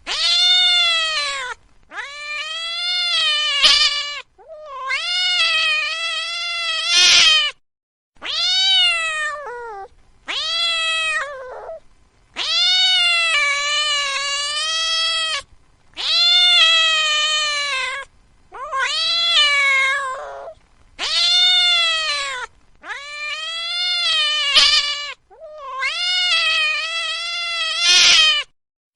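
A domestic cat meowing over and over: about eleven long, drawn-out meows, each rising then falling in pitch, with short pauses between.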